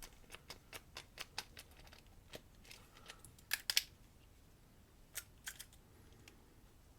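Faint metallic clicks and ticks from a padlock being turned and handled: a quick run of light clicks in the first second and a half, then a few louder clicks about halfway and two more a little later.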